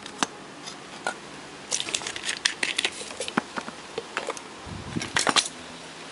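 Light, irregular clicks and taps of a small circuit board and tools being handled on a workbench, with a short cluster of duller knocks about five seconds in.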